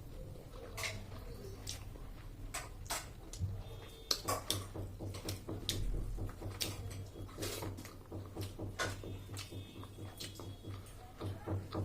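Close-up eating sounds: chewing, with irregular sharp mouth clicks and smacks, over a low hum.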